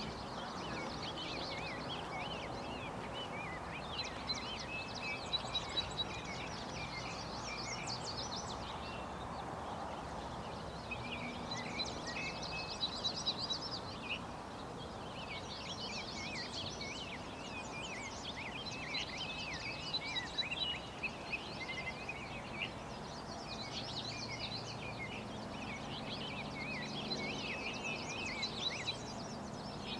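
Songbirds singing: phrase after phrase of quick, high chirps and trills, with only short gaps, over a steady hiss of outdoor background noise.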